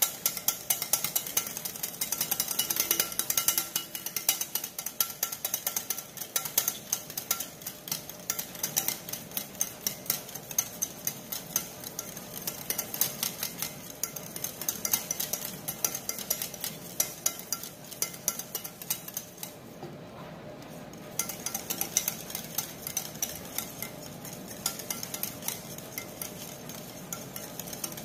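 Wire whisk beating rapidly against the side of a bowl, a fast, continuous rattle of clicks with a short lull about two-thirds of the way through. It is the beating of mayonnaise as olive oil is drizzled in to form the emulsion.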